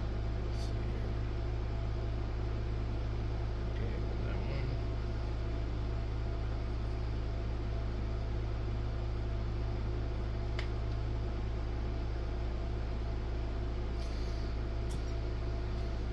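Steady low hum, with a few faint light clicks scattered through it.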